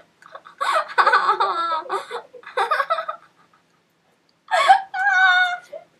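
Girls laughing and giggling while one has a toothbrush in her mouth. After a short pause comes one long, high-pitched squeal near the end.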